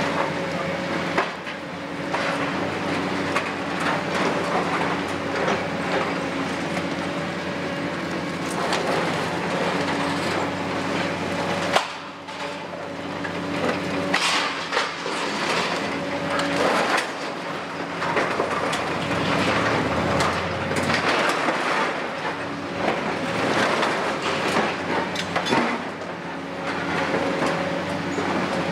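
Doosan DX255LC-5 crawler excavator's six-cylinder diesel engine running steadily under hydraulic load, while its grab digs into and lifts demolition rubble with repeated clattering knocks of broken masonry. Sharp bangs stand out about a second in and about twelve seconds in.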